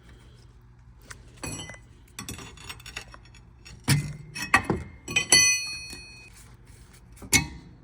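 Metal clinks and knocks with brief ringing as worn rear brake pads are worked out of the caliper bracket. A cluster of sharp clinks comes about halfway in, and one more near the end.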